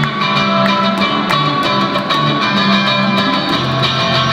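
Live music on homemade instruments: a guitar fitted with metal pipes is played over low notes from a rack of open-ended tubes struck with paddles. The tube notes change pitch about every half second, and the paddle strikes give a steady beat.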